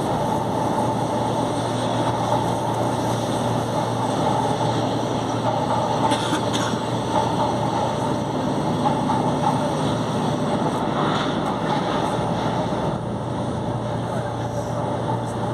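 São Paulo Metro Line 1 train running: a steady rumble with a constant low hum and a steady whine, and brief clatters about six and eleven seconds in.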